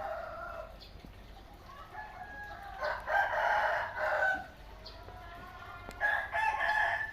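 A pet parrot calling in three bouts, each a second or so long, with pauses between.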